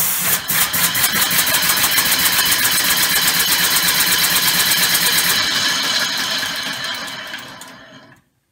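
Homemade three-cylinder compressed-air engine with an oval ring and rotor running on about 130 psi air, its exhaust hissing in rapid, even puffs. The sound fades and stops near the end.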